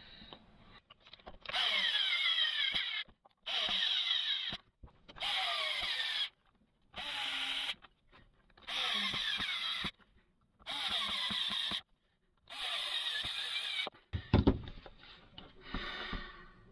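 Makita HP2040 electric drill's motor run in seven short trigger bursts of about a second each, on freshly fitted carbon brushes. A low thump and a few clicks come near the end.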